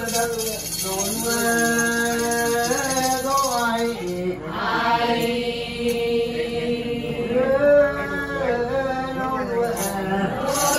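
Group of women chanting a Ponung song in unison, the Adi women's dance-song of the Solung festival, in long held notes that step up and down in pitch.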